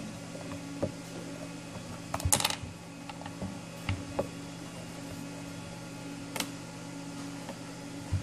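Scattered clicks and taps of a phone in a plastic case and a small carbon-fiber kickstand being handled against a wooden tabletop. The loudest is a short rattling cluster about two seconds in, and a steady low hum runs underneath.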